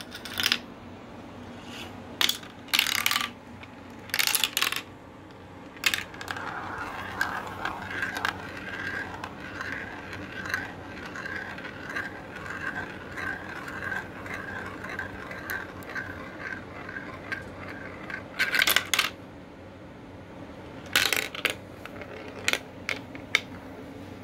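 A marble running through a translucent plastic marble run. It clacks sharply as it drops through the tubes and pieces, then spirals round a wide plastic funnel bowl with a long steady whirr for about ten seconds, and clatters through more track near the end.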